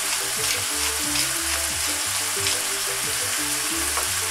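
Minced veal with sun-dried tomatoes frying in a pan, sizzling steadily, stirred and scraped with a wooden spatula at first.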